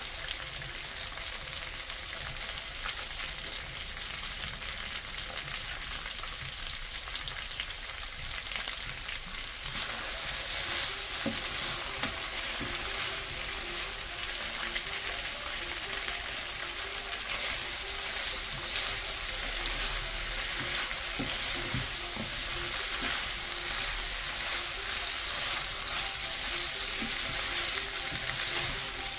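Rabbit pieces in masala sizzling as they fry in oil in a nonstick pan, stirred and scraped with a wooden spatula. The liquid has cooked off and the meat is dry-roasting. The sizzle grows louder about ten seconds in.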